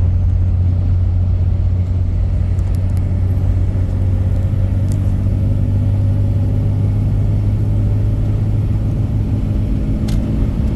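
Vehicle engine and drivetrain running steadily under way: a loud, even low hum, with fainter higher tones joining partway through.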